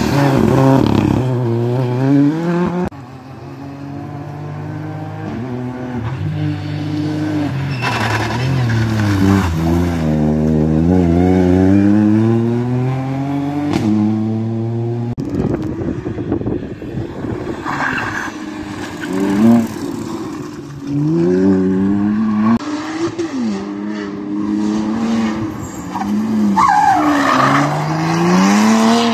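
Rally cars' engines revving up and down through the gears as they take tight corners, in several short clips cut together. Near the end a car slides through a hairpin with its tyres squealing.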